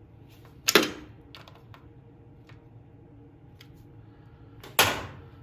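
Hand tools clicking and clacking against the breaker-point assembly of a 1975 Briggs & Stratton 5 hp engine as the points are tightened down: two sharp metallic clacks, one under a second in and one near the end, with faint light ticks between them.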